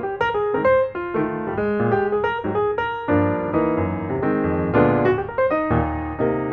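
Background piano music: a run of quick notes over a bass line.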